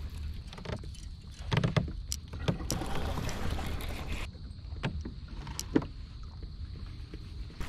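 Handling sounds in a fishing kayak on the water: a steady low rumble with a series of sharp knocks and clicks, several close together in the first few seconds and a few more later.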